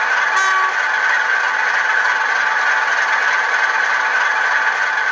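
Recorded Class 47 diesel engine sound from a model locomotive's LokSound v4 sound decoder, running steadily through its small onboard speaker, mixed with the rattle of the 00 gauge model running on its track. A brief tone sounds about half a second in.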